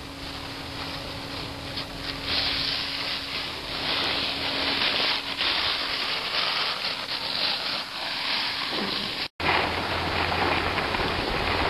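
Steady hiss of skis sliding over packed snow, mixed with wind rushing on the microphone. The sound cuts out for an instant about nine seconds in.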